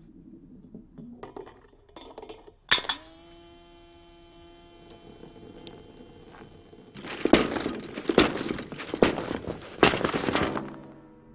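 Loose car parts triggering one another in a chain reaction. First come small clicks and rattles. About three seconds in, a single sharp strike rings on in a clear, slowly fading tone for several seconds. Then a run of loud, rapid clattering knocks on a wooden floor stops shortly before the end.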